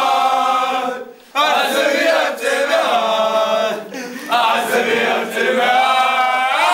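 A group of young men singing a football chant together, loud and in unison, with long held notes and a short break about a second in.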